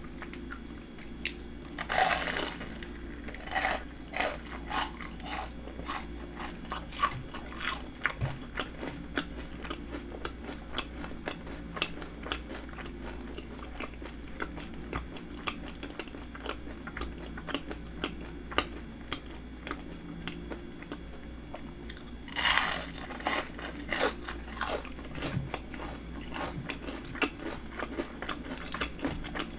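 Close-miked biting and chewing of crispy breaded fried shrimp, a dense run of crackly crunches. Two loud bites stand out, one about two seconds in and one about three-quarters of the way through.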